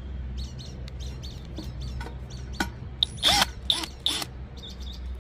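Cordless drill running as a steady low hum, driving Phillips screws into a carburetor and fuel tank, with a few sharp clicks around the middle. Birds chirp throughout.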